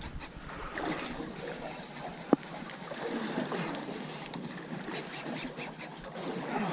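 Wind and water moving around a small fishing boat, with one sharp knock a little over two seconds in.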